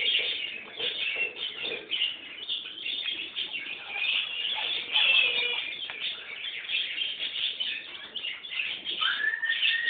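Chicks cheeping continuously in a dense, overlapping chorus of high peeps. Near the end comes one longer call that rises and then falls.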